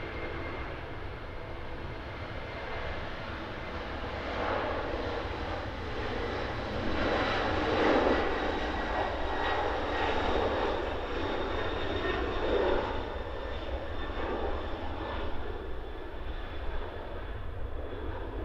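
Japan Airlines Boeing 767's twin jet engines at takeoff thrust through the takeoff roll and lift-off. The jet noise grows louder from about four seconds in, is loudest around eight seconds, and stays loud with uneven surges before easing slightly near the end, over a faint high whine.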